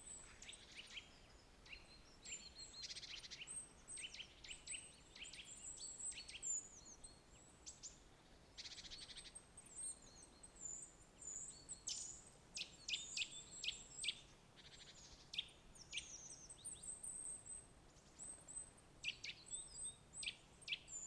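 Several small birds chirping, a dense run of short high calls and quick falling notes, many overlapping, with thin very high notes above them.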